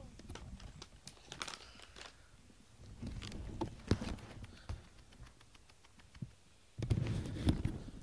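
Handling noise right at the microphone: irregular small clicks and soft low thumps, with a louder stretch of low rubbing and bumping near the end.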